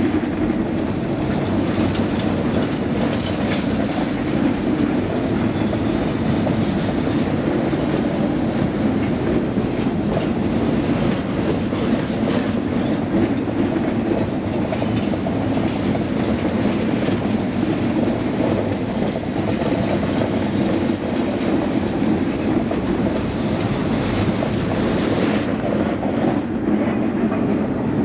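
Freight train of flatcars loaded with pipe rolling past, a steady rumble of wheels on the rails.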